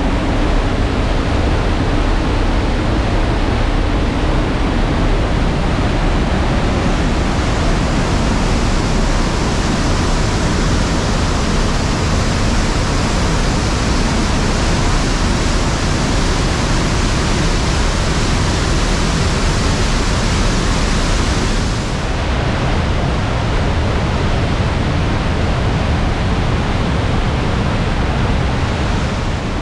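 Trümmelbach Falls' glacial meltwater waterfall: a loud, steady rush of falling water, with no tone or rhythm in it. The sound changes a little just over twenty seconds in.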